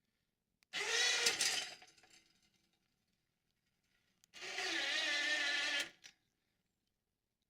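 Small electric winch motor on a garden tractor, run twice in short bursts. The first run winds down gradually and the second cuts off sharply.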